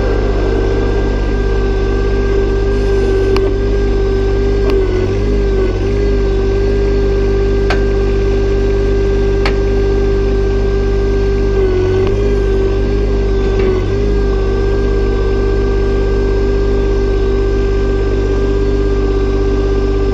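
John Deere 1025R subcompact tractor's Yanmar three-cylinder diesel running as the tractor drives slowly, with a steady whine over the engine and a few brief dips in pitch.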